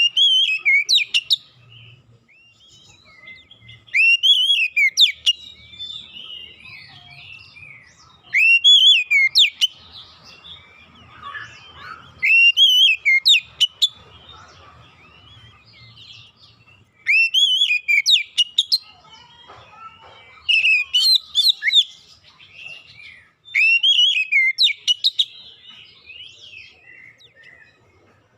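Oriental magpie-robin singing: phrases of loud whistled notes that arch up and down, each ending in quick sweeps up to very high pitch. The phrases repeat about every three to four seconds, with softer twittering in between.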